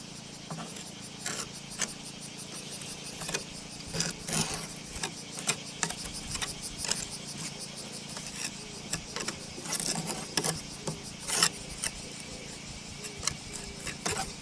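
Roof tiles being handled and worked: irregular light clinks and scrapes.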